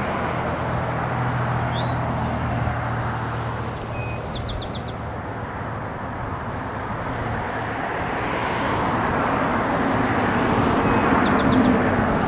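Road traffic passing: a steady rushing that fades and then builds again as another vehicle approaches. Over it, a bird gives a quick run of about five short, high, falling chirps twice, about four seconds in and again near the end.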